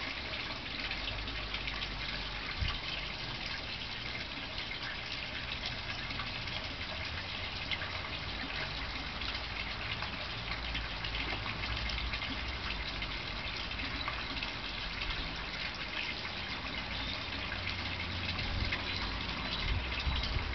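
Young European hedgehog eating wet food from a saucer: steady wet smacking and chewing, a dense run of quick small clicks, with a low rumble underneath.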